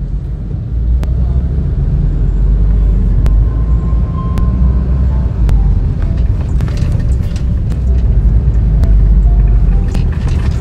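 Steady low rumble of a car driving in city traffic, heard from inside the cabin, with a few faint light clicks.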